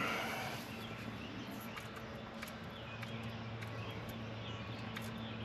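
Trigger spray bottle squirting leak-detection solution onto threaded gas pipe fittings to check for leaks. A short hiss comes at the start, then a few faint clicks over a steady low hum.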